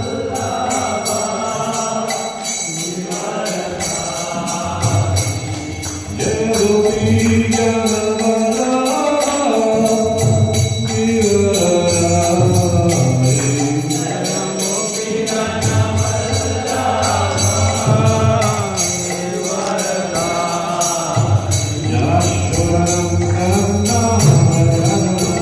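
Devotional mantra chanting sung to a melody, accompanied by small hand cymbals (kartals) struck in a steady jingling beat.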